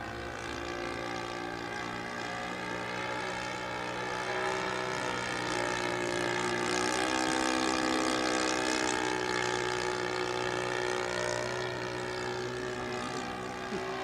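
Seagull Models Bücker Jungmeister radio-controlled biplane in flight, its motor and propeller running steadily as a droning note with many overtones. The sound grows louder around the middle as the plane passes closer, then eases off again.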